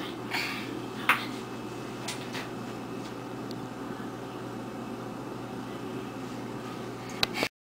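Steady indoor room noise with a low hum, broken by a few light clicks and knocks; the sound cuts off abruptly near the end.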